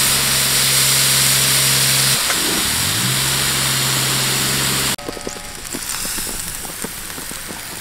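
Sausage patties sizzling loudly on a gas griddle over a steady low hum. The sizzle stops abruptly about five seconds in, leaving quieter scattered clicks.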